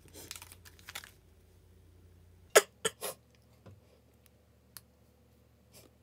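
Plastic swab wrapper crinkling as the swab is pulled out, then about two and a half seconds in a person coughs three times in quick succession, a gagging cough during a COVID-19 swab self-test.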